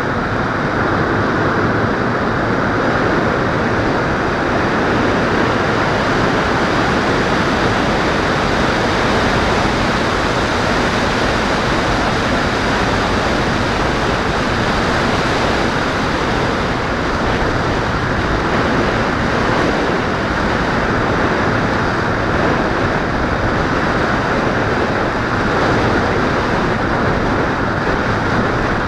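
Steady rush of airflow buffeting the onboard camera of an X-8 radio-controlled plane in flight, with no motor or propeller tone heard.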